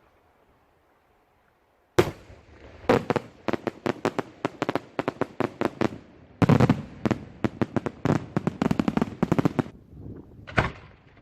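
Fireworks being test-fired. After about two seconds of near quiet comes one sharp bang, then a rapid run of cracking reports, several a second, for about seven seconds, heaviest around the middle, and a single last crack near the end.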